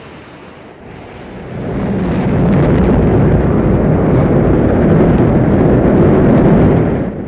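A loud, steady rumbling roar with no clear pitch that swells up about a second and a half in and holds, dipping briefly near the end.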